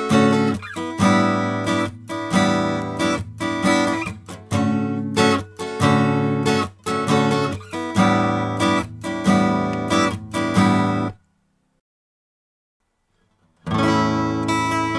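Acoustic guitar playing strummed chords, heard as a recorded example through the Dave Hill Designs Europa 1 microphone preamp on its transparent setting. The playing stops about eleven seconds in. After a silent gap of about two and a half seconds, the passage starts again through the preamp's medium slew rate and added-harmonics setting.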